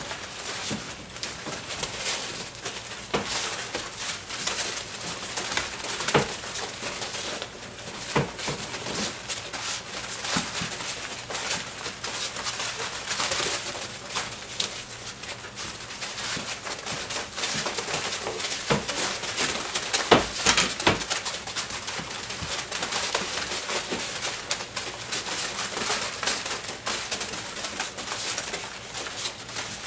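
Doberman puppies about six weeks old scrambling and tussling over a flirt pole lure in a box of wood shavings: paws scratching, shavings rustling and many small knocks, with little puppy growls and grumbles mixed in. A cluster of louder knocks comes about two-thirds of the way through.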